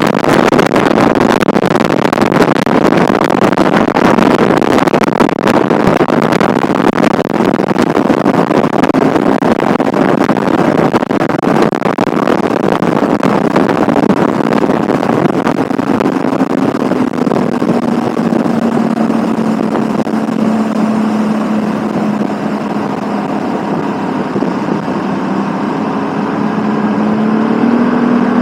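Heavy wind buffeting the microphone, a dense rushing crackle. About halfway through, a steady motor hum comes through under it, its pitch dipping slightly and then rising near the end.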